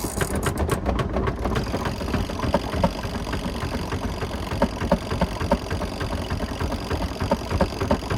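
A portable washer's spin dryer starting up and running with a steady motor hum. The spinning drum rattles and knocks irregularly throughout, fastest in the first second or so.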